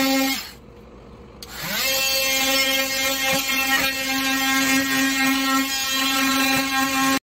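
Cordless oscillating multi-tool cutting into the wall with a steady buzz. It stops about half a second in, starts again about a second later and winds up to full speed.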